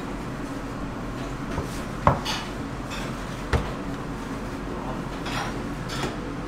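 Wooden rolling pin working scallion pancake dough on a floured stainless-steel counter, knocking sharply against the steel twice, about two and three and a half seconds in, over a steady background hum.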